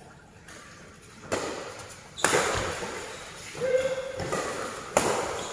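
Badminton rackets striking a shuttlecock during a rally: about three sharp hits, echoing in a large hall.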